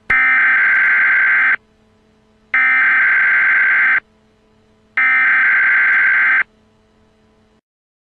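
Emergency Alert System SAME header: three identical harsh digital data bursts, each about a second and a half long with about a second between them, the electronic code that opens an EAS alert. A faint low hum sits between the bursts.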